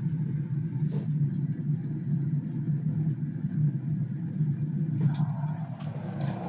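Electric kettle at a full boil, with a steady low rumble of water boiling.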